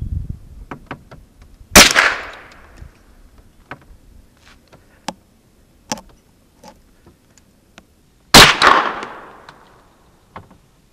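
Two gunshots about six and a half seconds apart, each a sharp loud crack followed by a fading echo, with faint scattered clicks between them.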